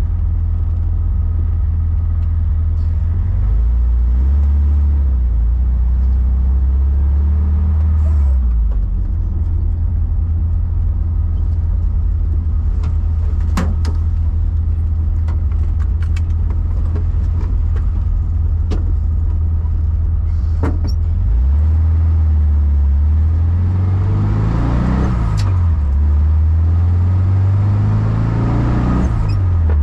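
Car engine running while driving, a steady low drone for most of the time. Toward the end it accelerates: the engine pitch climbs twice, each climb ending in a sudden drop, the pattern of changing up through the gears. A few short sharp knocks come through in the middle.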